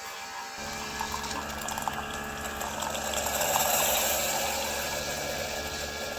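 Keurig single-serve coffee maker brewing: its pump starts humming about half a second in, and water runs through it into the cup, growing louder toward the middle.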